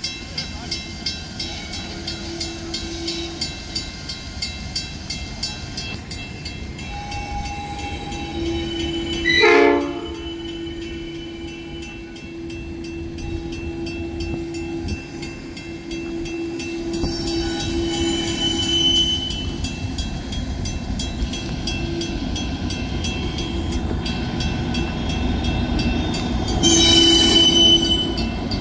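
Level-crossing bell clanging about twice a second while a Pacific National 82 class diesel locomotive approaches. Its horn sounds loudly about nine seconds in and again near the end, and the locomotive's rumble grows louder as it reaches the crossing.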